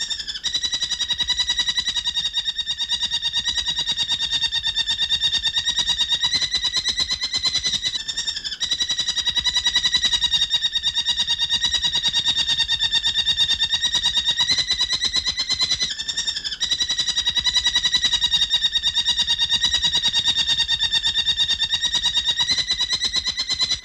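Recorded wildlife call: a continuous, rapid, buzzy trill held at a steady pitch, breaking off briefly twice, about eight seconds apart.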